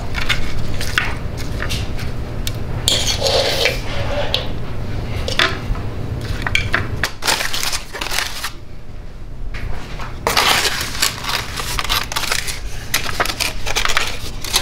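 Dinner being served: aluminium foil crinkling and crackling as a foil packet is opened, with a spoon and food clinking against plastic plates. A steady low hum runs underneath, and the foil crinkling is densest near the end.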